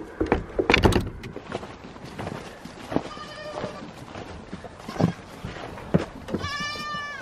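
Goats bleating twice: a short bleat about three seconds in and a longer, wavering one near the end. A burst of knocks and thumps comes in the first second, with a few single knocks later.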